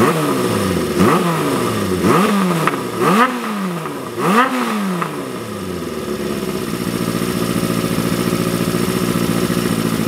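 Honda CB400Four air-cooled inline-four through a Yoshimura 4-into-1 collector exhaust with the silencer baffle in, revved in five quick throttle blips about a second apart, each rising and falling back. It then settles to a steady idle. The engine is fully warmed up.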